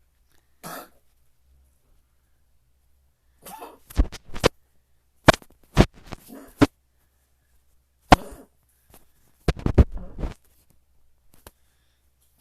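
A person coughing in three or four short fits of several sharp coughs each, with quiet gaps between them.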